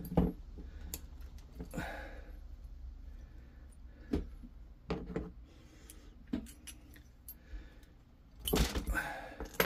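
Small steel gun parts being handled: scattered light metallic clicks and clinks as a pin punch is worked out of a shotgun breech block, with a louder clatter of knocks near the end.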